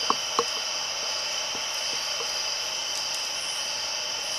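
Ghost box sweeping through radio stations, giving a steady hiss of static with a few faint short clicks and no voices coming through. Behind it runs a steady high-pitched chorus of night insects.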